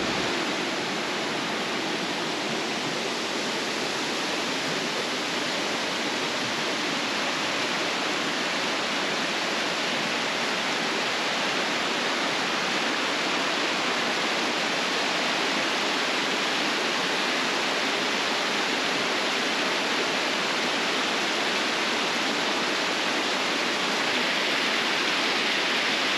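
Small waterfall on a creek: a steady rush of falling water, growing a little louder near the end.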